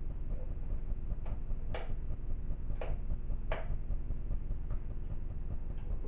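Four sharp plastic clicks within a few seconds as the Frigidaire electric heater's housing and controls are handled, over a steady low hum.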